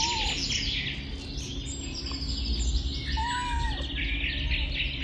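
Songbirds chirping and trilling, a dense chorus of rapid high chirps with no pause. Two short lower notes that rise and fall come through, one at the start and one about three seconds in.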